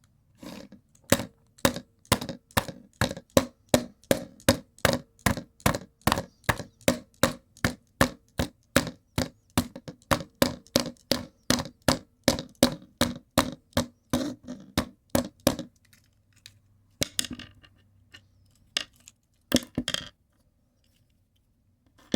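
A rapid, even series of sharp hard knocks or taps, about two to three a second, that stops about fifteen seconds in and is followed by a few scattered knocks.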